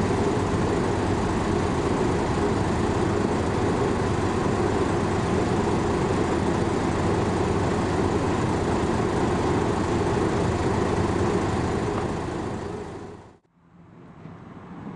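Diesel railbus engine running steadily, a constant hum with a strong low band. It fades and cuts out near the end, giving way to a much quieter background.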